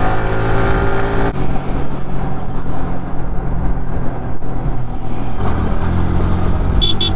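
Single-cylinder engine of a Yamaha R15 sport motorcycle running under the rider on the road, rising in pitch, then dropping sharply about a second and a half in and climbing again near the end. A few short high beeps sound right at the end.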